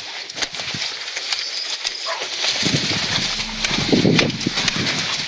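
Footsteps crunching and scuffing over rubble and loose earth, an uneven run of crunches.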